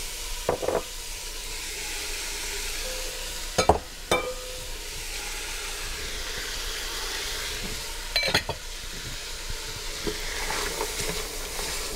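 Chicken pieces sizzling in hot oil in an enamel stockpot as diced carrots, onions and celery are added and stirred in with a spoon. The sizzle is a steady hiss, broken by a few sharp knocks about half a second, four seconds and eight seconds in.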